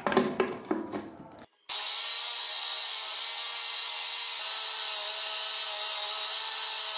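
Electric food processor running steadily as it minces raw chicken breast, a steady motor whine with a whirring hiss that starts abruptly about a second and a half in. Before it, a few plastic knocks as the bowl lid and pusher are fitted.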